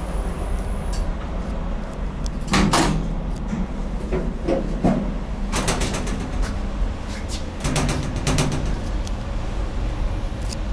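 SMW inclined elevator: the cabin's sliding doors shut, then several groups of clunks and knocks sound over a steady low rumble as the cabin travels down its incline.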